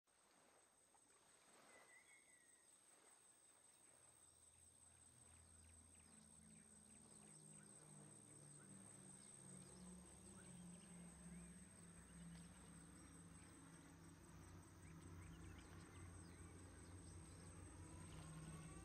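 Faint summer ambience of insects and scattered bird chirps. From about five seconds in, the low, pulsing drone of distant propeller bombers grows slowly louder. Near the end a rising wail begins.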